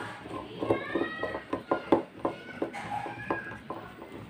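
Screwdriver turning a screw into a vacuum motor's carbon-brush holder: a series of sharp clicks, about four a second, as the screw is tightened. A short high squeak comes about a second in.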